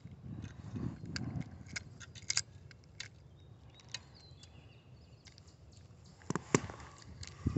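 Handling noise from the phone: scattered light clicks and taps, with a cluster of sharper knocks about six and a half seconds in as it brushes against clothing.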